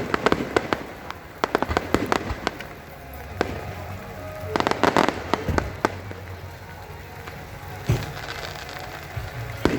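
Aerial fireworks going off in rapid clusters of bangs and crackles, with gaps between the volleys and one deep single boom about eight seconds in.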